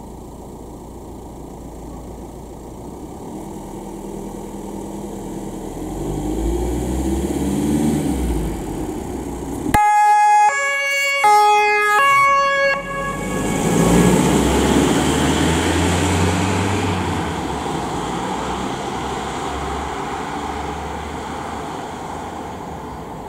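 Fire brigade van's German two-tone siren (Martinshorn) sounding briefly, about three seconds of alternating high and low notes, while the van's engine pulls away. The engine builds up before the siren and fades as the van drives off.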